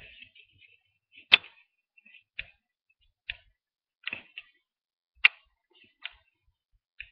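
A series of sharp clicks or taps, about one a second at uneven spacing, two of them much louder than the rest.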